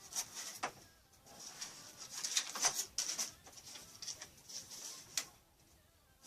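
A stool squeaking in a run of short high squeaks as someone shifts on it, with a few light clicks in between.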